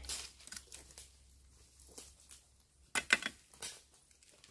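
Dry bamboo leaves and twigs rustling and crackling as they are handled and pushed aside, with a short cluster of sharper cracks about three seconds in.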